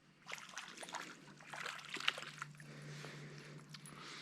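Small stream water trickling, with a run of small splashes and sloshes in the first couple of seconds as hands move in the shallow water, then a steadier trickle.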